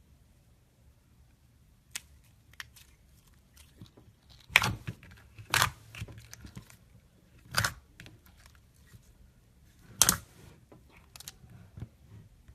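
Glitter slime being handled: scattered faint clicks and four louder short squishes, two around the middle and two later on.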